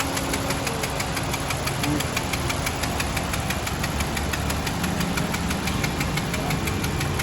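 Honda Civic engine running steadily at idle with a rapid, even ticking over the hum. The ticking is the engine noise fault being investigated.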